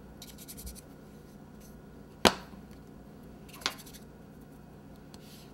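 Handling noise at a work counter: light rustling near the start, then one loud sharp tap about two seconds in and a softer tap about a second and a half later.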